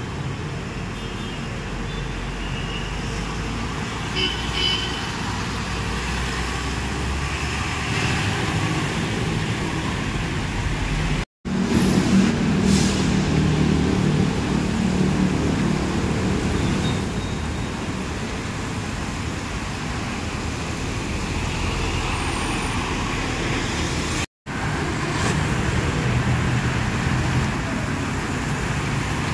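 Roadside traffic with buses driving past, their engines rumbling, loudest just after the first break. The sound cuts out abruptly twice, about 11 and 24 seconds in.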